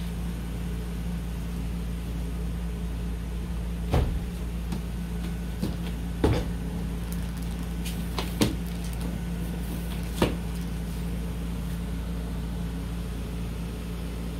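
Four sharp clicks and knocks, spread a couple of seconds apart, from handling a hard-shell suitcase and pulling up its telescopic trolley handle, over a steady low hum.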